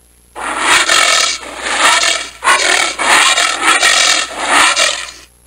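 Sound effect standing for a giant armadillo: a rough, rasping noise in five bursts, each under a second long.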